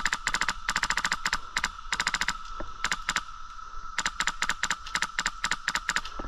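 Airsoft gun firing in short rapid bursts of sharp clicks, about nine bursts with brief pauses between them, as suppressing fire is kept on a target.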